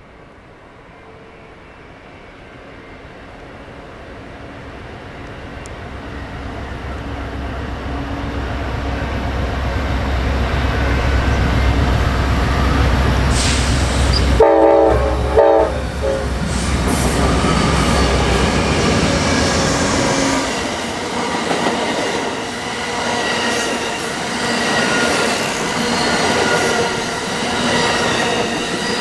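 Amtrak passenger train led by two GE P42DC Genesis diesel locomotives approaching and passing. The diesels' deep rumble builds steadily, and about halfway through the locomotive horn gives two short blasts as they pass, a crew acknowledgment to the trackside watcher. After that the bilevel Superliner cars roll by with wheel and rail clatter.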